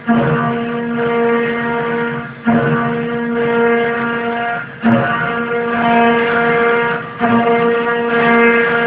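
CNC 3040 router milling aluminium: a steady pitched machine whine that cuts out briefly and restarts sharply about every two and a half seconds, as the machine works through its programmed moves.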